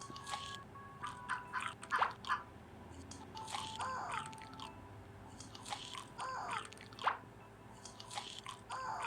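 A person biting and chewing crunchy food close to the microphone, with a crisp crunch every second or so.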